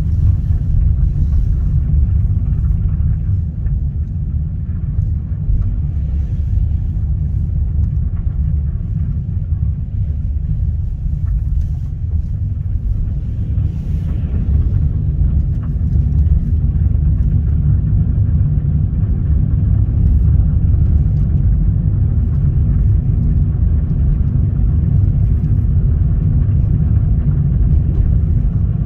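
Steady low road and engine rumble inside a moving car's cabin, dipping slightly for several seconds and then rising again a little past the middle.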